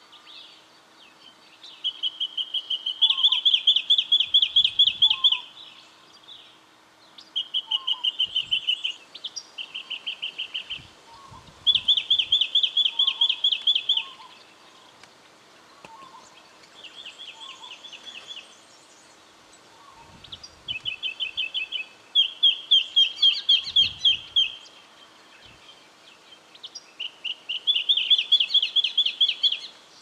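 Brown treecreeper calling: loud series of rapid, evenly repeated high notes, each series lasting one to two seconds, about nine series with short pauses between.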